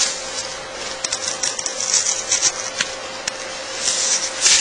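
Craft knife scoring veneer, a light scratching with small ticks as the blade is drawn along the edge of the taped veneer figure and through masking tape; the scratching grows louder near the end.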